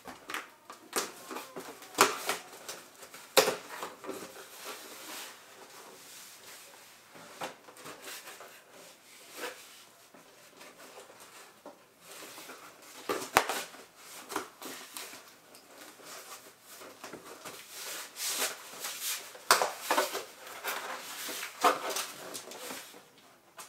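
Cardboard shipping box being handled and opened by hand: scraping and rustling of cardboard, with sharp knocks and taps now and then, busiest near the end.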